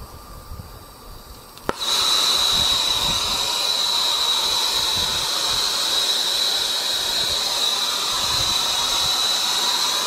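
Brazing torch lit with a flint striker: a sharp snap just under two seconds in, then the flame burning with a loud, steady hiss and a high whistling tone.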